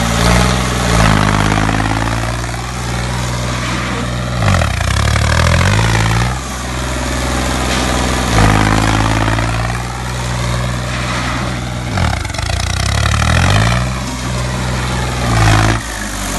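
New Holland 3630 tractor's three-cylinder diesel engine running under way at low speed, its revs rising and dropping back again several times.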